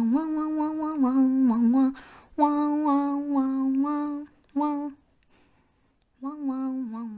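A woman's voice humming a tune in four short phrases of held, fairly steady notes, with brief pauses between them; the longest pause, about a second, comes past the middle.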